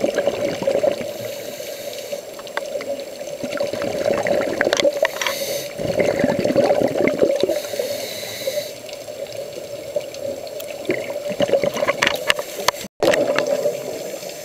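Underwater sound heard through a compact camera's waterproof housing: a steady muffled drone of water with irregular bursts of gurgling and crackling from scuba divers' exhaled bubbles. The sound cuts out for an instant near the end, where two clips are joined.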